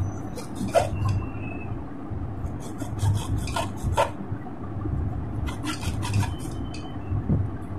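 Hand-held hacksaw blade sawing back and forth across an armoured cable, through the outer PVC sheath and part-way into the wire armour beneath. The rasping strokes come in three quick bursts of about a second each, with short pauses between.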